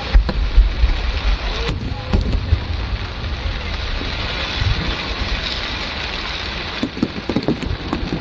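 Fireworks display: a steady crackling hiss like frying or rain, typical of crackle shells, with deep low booms in the first three seconds and a few sharp pops scattered through.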